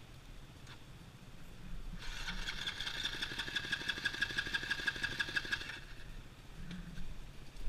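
Husqvarna TE450 single-cylinder four-stroke dirt bike engine running low. About two seconds in it turns to a louder, rapid pulsing sound for roughly four seconds, then drops back.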